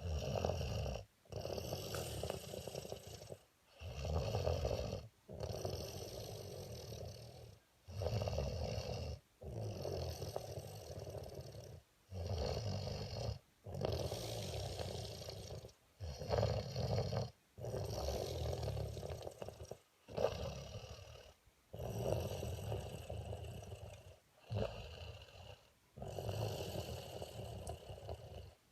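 A person snoring steadily, a rough snore on each breath, each lasting one to two seconds with short quiet gaps between.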